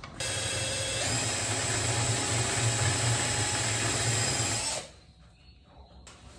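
Electric drill with a 5.5 mm bit running steadily, drilling out M4 mounting holes to 5.5 mm. Its whine steps up in pitch about a second in, and it stops about five seconds in.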